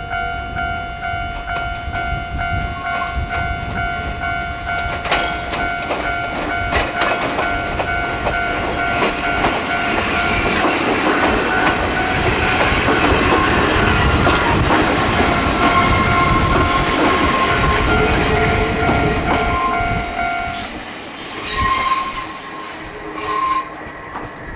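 Ichibata Electric Railway 3000 series two-car electric train, a former Nankai 21000 series, pulling away and passing close by with its wheels clattering over the rail joints. It is loudest about twelve to eighteen seconds in, then fades as it moves off. A level-crossing alarm rings in a steady tone underneath and cuts off about twenty seconds in.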